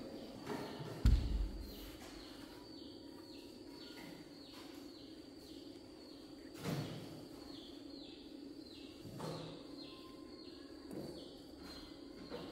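Outdoor background noise with a bird repeating a short falling chirp, broken by a few dull thumps, the loudest about a second in.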